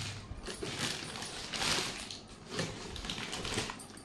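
Packaging rustling with irregular light clicks and clatter as a mixer grinder's box contents and jars are handled and unpacked.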